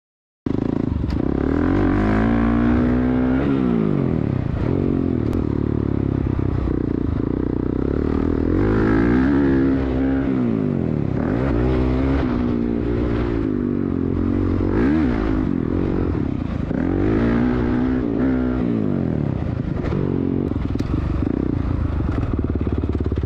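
450cc four-stroke motocross bike engine being ridden hard, revving up and down over and over, its pitch climbing and dropping every two to three seconds as the throttle is opened and shut.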